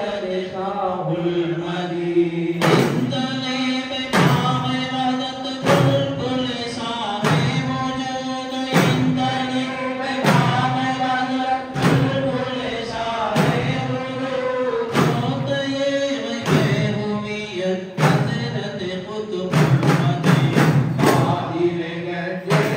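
Men chanting a devotional dhikr in unison over hand-struck frame drums (daf). The drummers strike together about every second and a half, and the strokes come quicker and closer together near the end.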